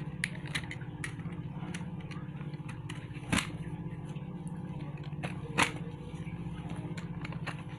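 Snap-off utility knife blade slicing along the packing tape on a cardboard box, with light scratchy ticks and two sharp clicks, one near the middle and one about three-quarters through. A steady low hum runs underneath.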